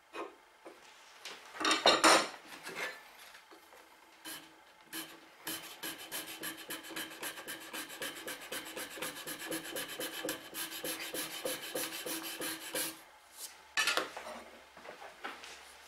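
Fast back-and-forth abrasive strokes, about five a second, of a flat hand-held block rubbed across the beech body of a wooden coffin smoother to true it. A few louder knocks about two seconds in and again near the end, as tools are handled and set down.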